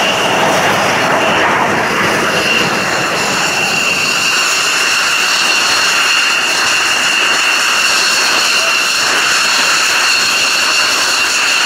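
F-16 fighter's Pratt & Whitney F100 turbofan running steadily on the ground: a loud, even rushing noise with a steady high whine over it.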